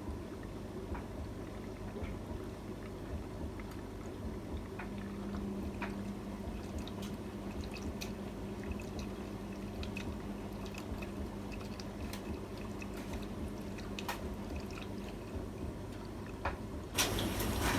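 AEG Öko-Lavamat 73749 front-loading washing machine with water splashing and trickling in its drum, dotted with small clicks and drips. A steady hum runs from about five seconds in to about fifteen, and a sudden louder rush starts near the end.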